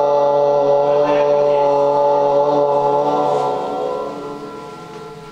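A long chanted note held on one low pitch, steady and unbroken, fading away over the last second and a half.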